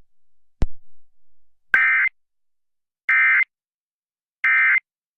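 Emergency Alert System end-of-message tones: three short, identical bursts of warbling digital data, evenly spaced about a second and a half apart, marking the end of the broadcast Amber Alert. A single sharp click comes just before them.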